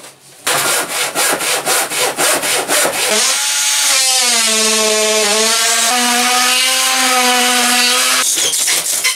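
Hand saw cutting through timber with quick, even strokes, about four a second. About three seconds in, a cordless power tool starts up and runs with a steady whine for about five seconds, its pitch dipping briefly and then stepping up a little, before it stops near the end.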